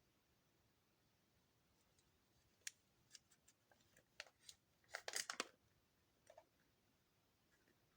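Quiet handling of an EXXE soap bar and its packaging: scattered small clicks and crinkles, densest about five seconds in.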